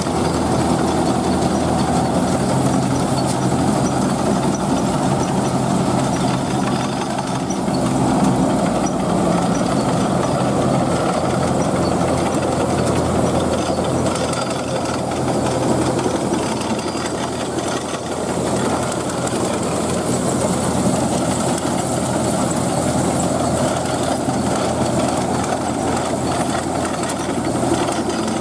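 Tracked combine harvester running steadily while cutting: the engine's drone mixed with the rattle of the reel, cutter bar and threshing machinery.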